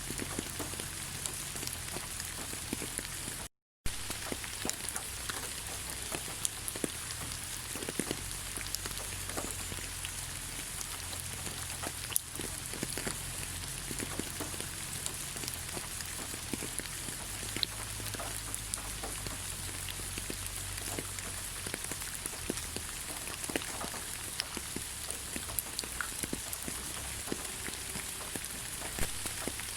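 Steady rain falling on leaves: an even hiss with many separate drops ticking and pattering. The sound cuts out completely for a split second about three and a half seconds in.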